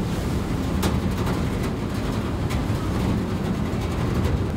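Steady low rumble of a car ferry under way, with a couple of faint clicks about one and two and a half seconds in.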